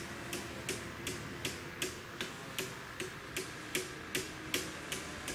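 Level-crossing warning signal ticking at a steady pace, about two and a half clicks a second, while the barriers are down: the warning that a train is approaching.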